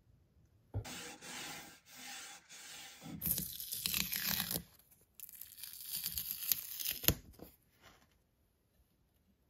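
Masking tape being peeled off the face of a freshly painted axe head in several tearing pulls, the loudest in the middle, with a sharp click near the end.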